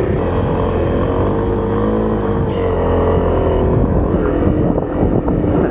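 Kawasaki KLX300's single-cylinder four-stroke engine running on a dirt track, its pitch rising and easing with the throttle. Wind buffets the action-cam microphone throughout.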